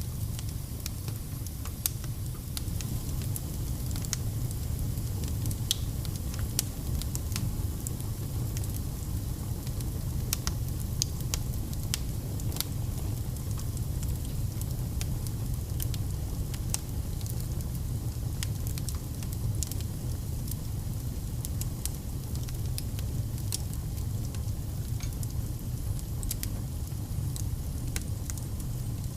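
Fire crackling in a fireplace: a steady low rumble with frequent small, sharp, irregular crackles and pops.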